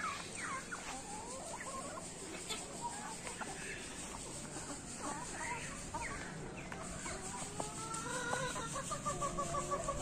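Free-range desi chickens clucking and calling in short gliding notes, with a quick run of repeated clucks near the end.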